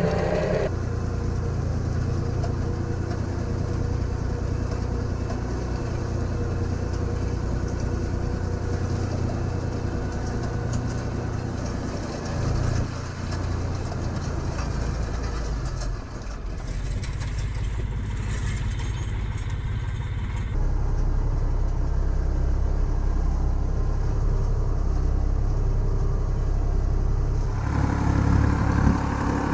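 Hürlimann XA 606 tractor engine running steadily while it pulls a Pöttinger Hit 54N rotary tedder turning hay, a low rumble with the tedder's working noise. The sound changes abruptly several times.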